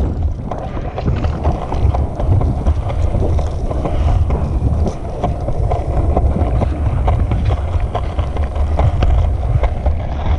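Skateboard wheels rolling on a concrete sidewalk: a steady low rumble with sharp clacks as the wheels cross the joints between slabs, and wind buffeting the microphone.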